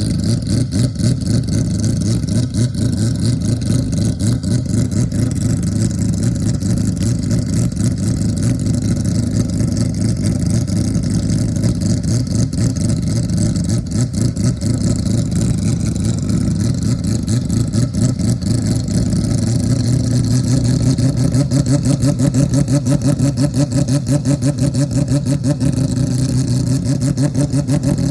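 Mazda 767B's four-rotor rotary racing engine running at fairly low, steady revs with a loud, rapid, lumpy beat. About two-thirds of the way through it settles into a slightly louder, steadier note.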